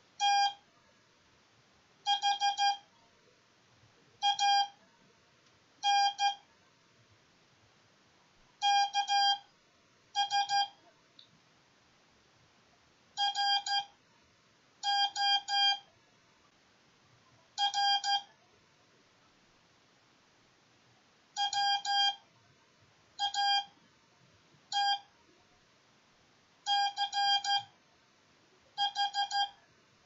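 MFJ-557 Morse code practice oscillator sounding a steady tone as its straight key is hand-keyed: short and long beeps in clusters, with pauses of a second or more between letters. The beeps send Morse code at about 15 words per minute, spelling out "thanks for watching".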